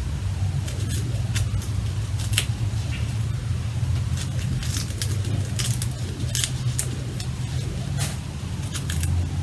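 Irregular sharp crackles and snaps of a pomegranate's rind being broken open and peeled by hand, over a steady low hum.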